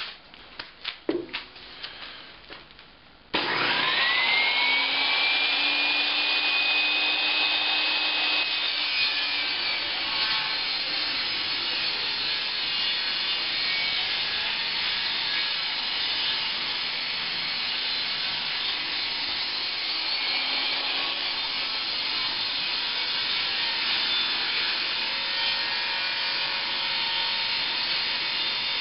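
Mastercraft table saw switched on about three seconds in, its motor whine rising quickly as the blade spins up and then holding steady, after a few faint clicks and knocks. The saw then runs under load as a 2x4 is fed through along the fence, ripping off its rounded edges.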